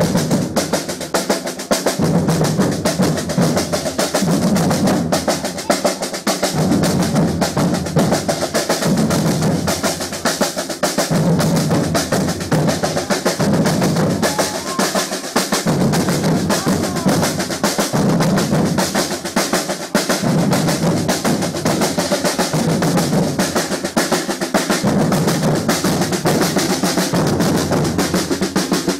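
Batucada drum group playing a loud, continuous samba rhythm: snare drums rattling fast strokes over surdo bass drums struck with mallets, the bass beat swelling in phrases every couple of seconds.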